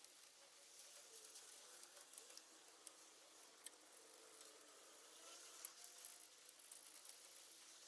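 Near silence: faint hiss with scattered light clicks.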